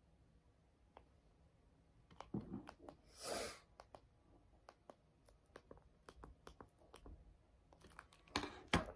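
Quiet tabletop handling sounds: scattered small clicks and taps, a soft thud about two and a half seconds in, a brief rustle just after three seconds, and a cluster of sharper clicks near the end.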